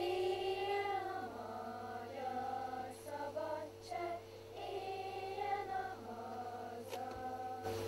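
Children's choir singing softly, long held notes with short breaks between phrases, over a steady low electrical hum.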